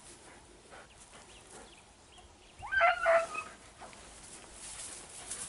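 A beagle giving a short yelping bay in two quick notes about halfway through.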